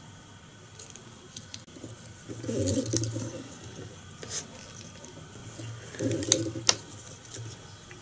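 Faint handling noise of fly tying: monofilament line being wound in even turns over a film-covered body on a hook to segment it, heard as two short bouts of rustling with a few clicks, a few seconds apart.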